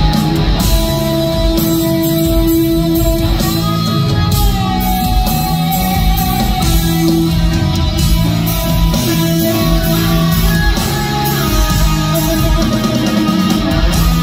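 Live instrumental rock played by an electric guitar, electric bass and drum kit. The guitar plays long held lead notes over a dense, loud band sound.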